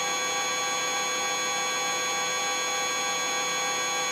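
Eurocopter EC135 twin-turbine helicopter in cruise on approach, a steady whine of many fixed tones from its turbines and main gearbox, heard through the cockpit audio feed.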